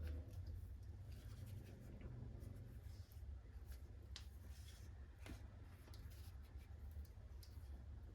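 Faint scratchy rubbing and scattered small clicks of kitchen things being handled, over a low steady hum.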